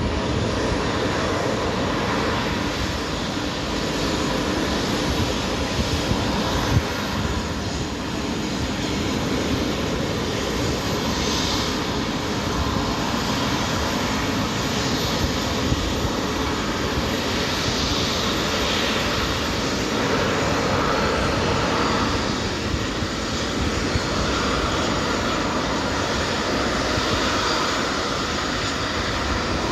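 Boeing 737-300F's CFM56-3 turbofan engines running at taxi power: a steady jet rush with faint even tones, holding level throughout.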